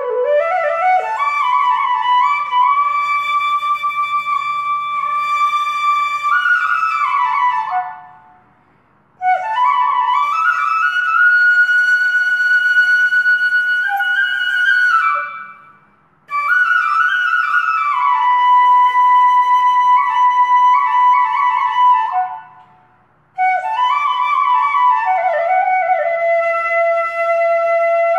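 Background music: a solo flute playing a slow melody of long held notes with gliding slides, in four phrases broken by short pauses.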